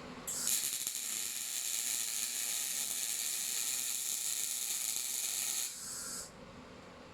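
Torros MIG 200 Pulse semi-automatic welder's arc crackling and hissing steadily for about five seconds as a weld bead is run, then cutting off.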